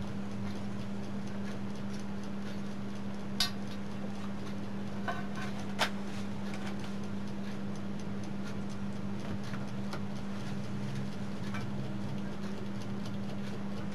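Steady low hum with light clicks and ticks of wires and connectors being handled at the back of a CRT television chassis, two sharper clicks about three and a half and six seconds in.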